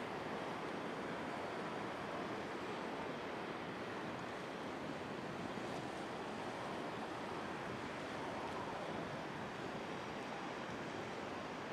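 Choppy, storm-churned ocean surf washing below the pier: a steady, even wash of water with no single wave crash standing out.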